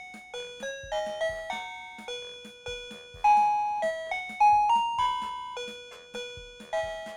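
OMERIL wireless doorbell receiver playing one of its 32 electronic chime tunes: a quick melody of bright, bell-like notes.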